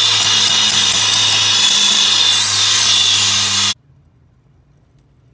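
An electric power tool running loudly and steadily, then cutting off abruptly.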